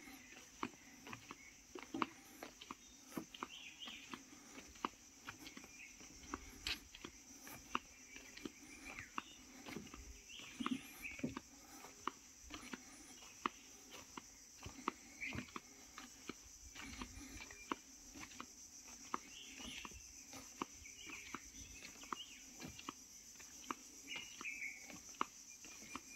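Insects droning steadily at a high pitch, with many scattered clicks and knocks and a few short calls mixed in.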